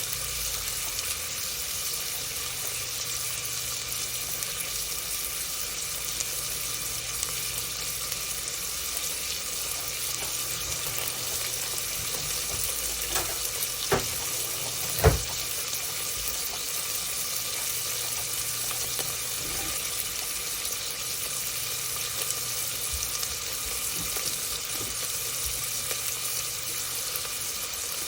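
A steady hiss from food preparation, with two sharp knocks about a second apart about halfway through; the second knock is louder.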